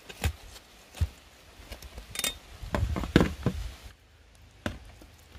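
Irregular sharp knocks and clatter from handling food and utensils, with a quick run of knocks about three seconds in.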